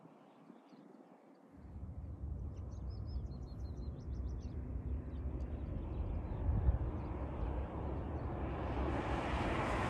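Wind buffeting the microphone: a low rumble that sets in about a second and a half in and swells into a louder rush near the end. Faint bird chirps a few seconds in.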